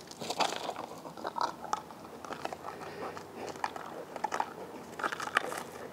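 A dog mouthing and nosing a small plastic M&M tube on asphalt, trying to pick it up: irregular light clicks and scrapes of teeth and plastic on the pavement.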